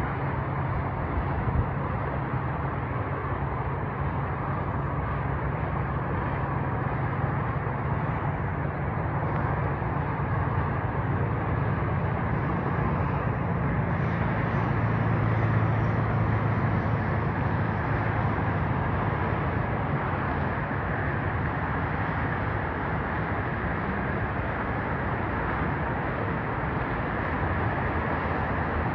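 Freeway traffic: a steady wash of passing vehicle noise with a low hum underneath, swelling slightly about halfway through.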